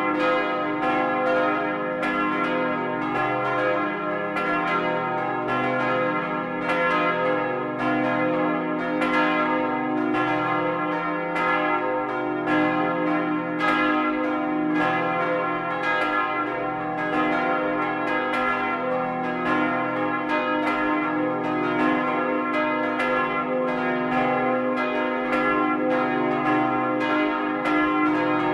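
Full peal of four church bells cast in 1952 by Karl Czudnochowsky, swinging together, their clappers striking in an overlapping stream several times a second over the long ringing tones of the bells. Heard close up inside the belfry.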